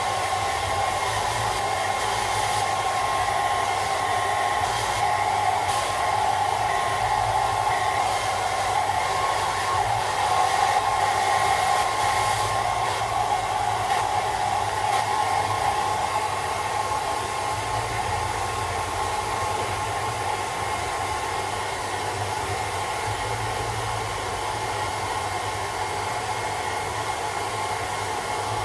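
Handheld hairdryer running steadily, a continuous rush of blown air with a faint steady whine, being blown on a cat's fur.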